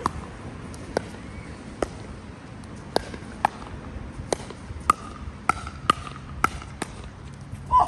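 Pickleball rally: paddles hitting the plastic ball in about a dozen sharp pops, coming faster in the second half as the players volley at the net.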